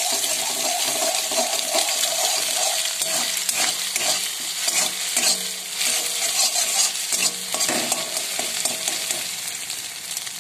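Egg frying in hot oil in a kadai, sizzling steadily, while a metal spatula scrapes and taps against the pan as it breaks up and stirs the egg.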